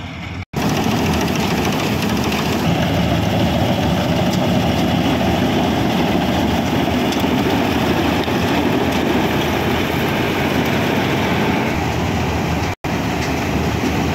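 A tractor-mounted combine harvester (a John Deere 5075 diesel tractor driving a Dasmesh combine) running at close range: engine and threshing machinery giving a loud, steady mechanical noise. The sound drops out for an instant twice, about half a second in and near the end.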